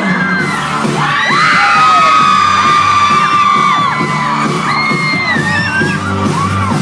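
A crowd cheering, with many high children's whoops and screams, over music with a steady bass line.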